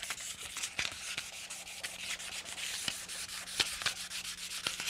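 Fine 400-grit sandpaper rubbed by hand over a machined aluminum chill plate in repeated short scratchy strokes, knocking down nicks, high spots and surface corrosion so the plate will sit flush.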